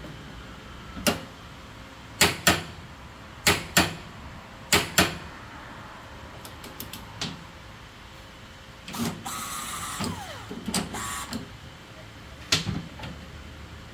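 Click-type half-inch drive torque wrench clicking as it breaks at its 160 foot-pound setting, pulled counterclockwise against a torque tester: sharp clicks, several in close pairs about a second apart. A short rattling noise comes about nine seconds in.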